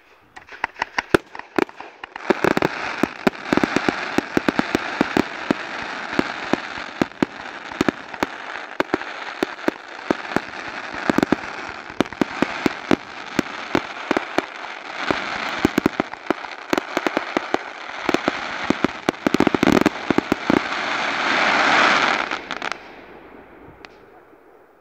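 Ghengis Fireworks category 4 firework cake firing: a rapid run of launch thumps with a dense crackle of bursting stars. It builds to its loudest about 22 seconds in, then stops, and the crackle dies away.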